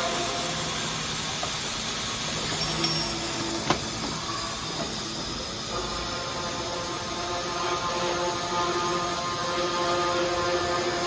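Automatic cold saw machine running: a steady hiss under a steady, multi-toned motor hum that drops back near the start and comes in again about six seconds in, with one sharp click near four seconds.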